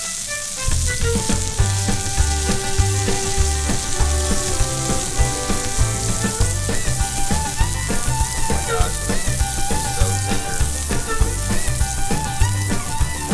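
Filet mignons sizzling in butter in a cast iron skillet, a steady frying hiss, under background music with a pulsing bass beat and a melody.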